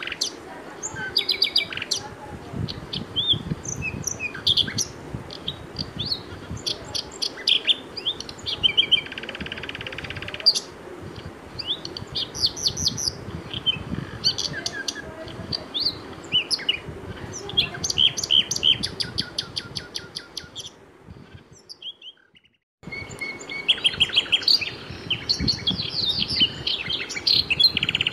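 Birdsong ambience: many small birds chirping and trilling. It fades away about twenty seconds in, goes silent for a moment, then starts again abruptly.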